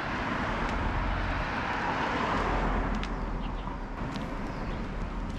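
Road traffic: a car going by on the road, its tyre and engine noise swelling to a peak about two seconds in and then fading.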